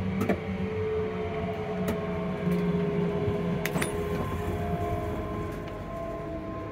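Hitachi-built ScotRail Class 385 electric multiple unit under way, its traction motors and inverters giving a steady whine of several held tones, heard inside the carriage, with a few sharp clicks.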